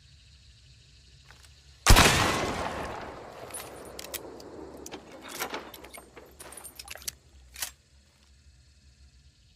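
A single Maynard rifle shot about two seconds in, dying away over a second or two, followed by a series of short sharp clicks and clacks, the last one loudest, near the end.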